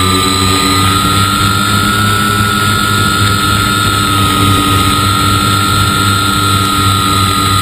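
Scratch-built foam-board RC plane's motor and propeller running steadily in flight, heard from on board: a steady high whine that rises slightly about a second in, over a low hum.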